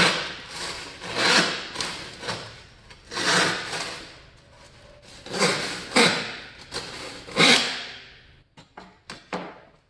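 Western-style handsaw with a 0.7 mm thin plate rip-cutting along a thin board, in strokes roughly a second apart with a short lull in the middle. A few light knocks near the end.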